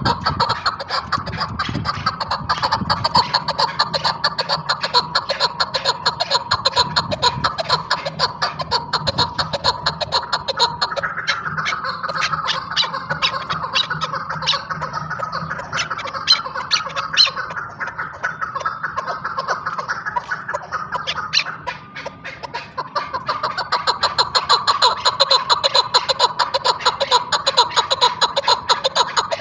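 Female chukar partridge calling: a fast, near-continuous run of repeated chuk notes that eases briefly about two-thirds of the way through, then picks up again.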